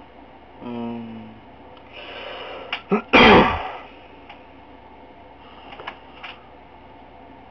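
A person close to the microphone gives a short hum, draws a breath, then lets out one sudden loud burst from the throat about three seconds in. A few faint clicks come near the end.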